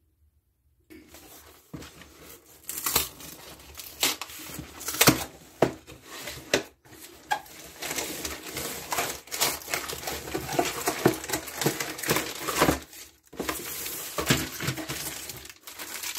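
A cardboard box of freezer pops being opened and the plastic-sleeved pops handled: crinkling, tearing and rustling packaging with many sharp crackles. It starts about a second in, after near silence.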